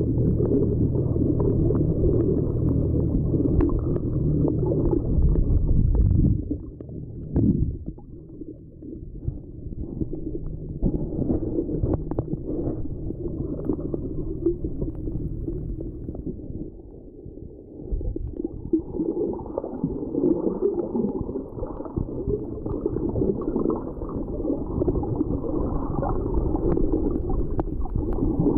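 Muffled underwater sound picked up by a waterproof camera held below the surface: low rumbling and gurgling of moving water, with a steady low drone for the first few seconds.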